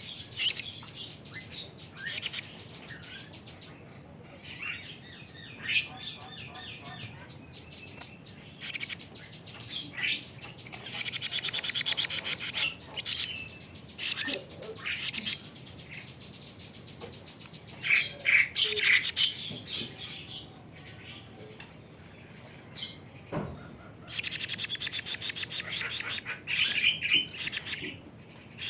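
Young kedasih (plaintive cuckoo), about six weeks old, calling: scattered high chirps broken by fast trills of rapidly repeated notes. The two longest trills, each about two seconds, come near the middle and near the end.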